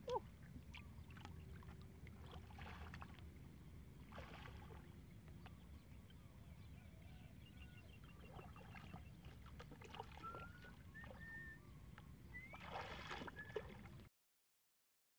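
Faint water sloshing and splashing from a person wading chest-deep through lake water, over a steady low rumble. A few faint short chirps come near the end, and then the sound cuts off.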